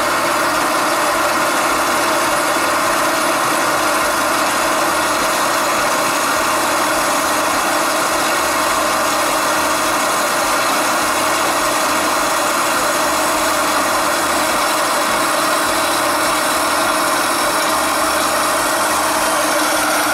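Vertical bandsaw running steadily, its motor and the freshly welded blade giving a loud, even hum and hiss.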